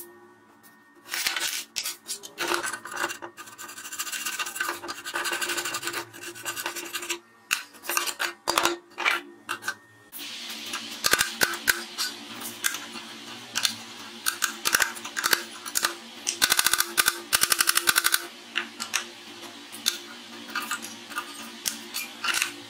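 Metal tool scraping and knocking on the rusty steel base and vise jaw of an old chop saw, in quick rasping strokes with clicks.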